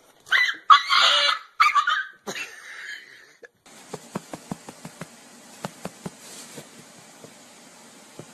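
A dog giving several loud yelping barks in quick succession. This is followed by a steady hiss with a run of short, light clicks.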